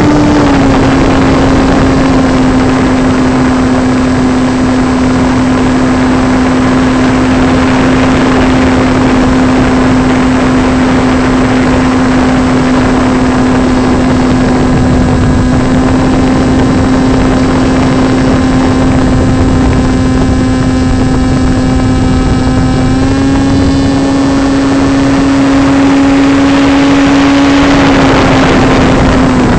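Brushless electric motor and propeller of a foam RC plane in flight, heard from a camera mounted on the airframe: a steady, loud motor tone over heavy wind rush on the microphone. The pitch steps up slightly about three quarters of the way through and eases back down near the end as the throttle changes.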